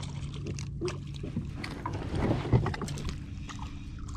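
Small jon boat on the water: a steady low hum with scattered knocks and clicks from rod and gear being handled aboard the boat.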